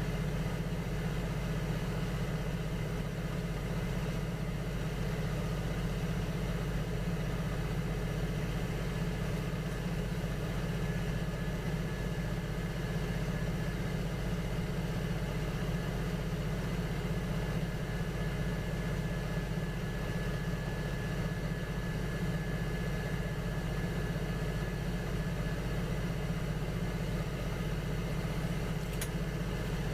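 Electric potter's wheel motor running at a steady speed, with an even hum.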